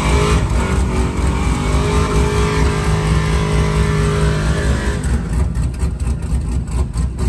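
Pickup truck engine revving hard and held at high revs for about five seconds, then turning choppy and pulsing for the last couple of seconds.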